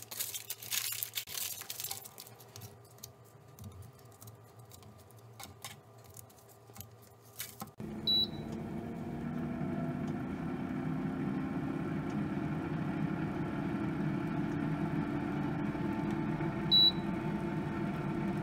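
Aluminium foil crinkling and rustling as it is folded around an egg. It then gives way to the steady hum of an Instant Vortex Plus air fryer's fan running, with a short high beep just after the hum starts and another near the end.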